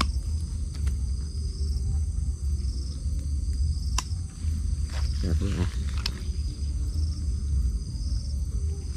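Crickets and other night insects trilling steadily over a heavy low rumble, with a couple of sharp clicks about four and six seconds in.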